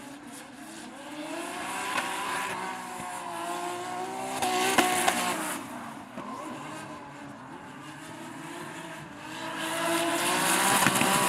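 Two drift cars' engines at high revs in a tandem slide, their pitch rising and falling with the throttle, over squealing tyres. It is loudest about halfway through, with a sharp crack, and again near the end.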